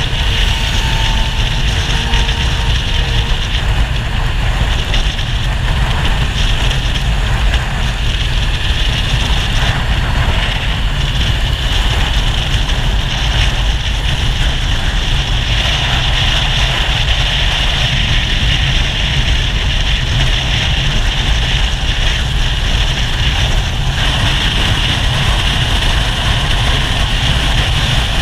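Steady wind rush over the microphone at highway speed, with a Suzuki GSF1200 Bandit's inline-four engine running underneath at a constant cruise.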